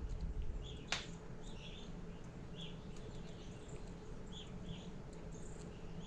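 Hairy woodpecker feeding from a hand, with one sharp peck at the food about a second in. Faint short bird chirps come and go over a low steady hum.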